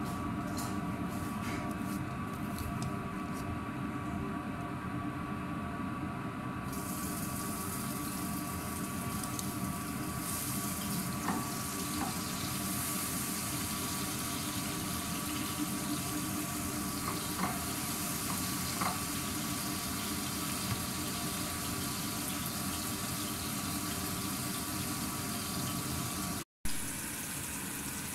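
A knife taps on a cutting board for the first few seconds. Then, from about seven seconds in, comes the steady hiss of chopped onion, garlic, tomato and chili sautéing in oil in a frying pan, stirred with a wooden spatula. A steady hum runs underneath.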